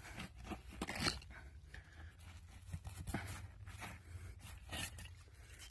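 Scattered crunching and scraping of dump soil and debris as a buried glass bottle is dug out, with short irregular clicks.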